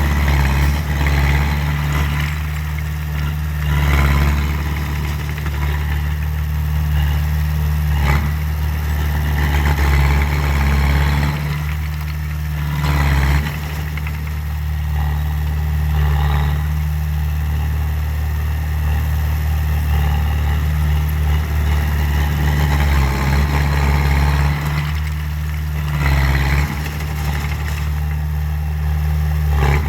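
Komatsu D20A bulldozer's diesel engine running steadily, its note swelling and easing as load changes, with a few brief loud clatters.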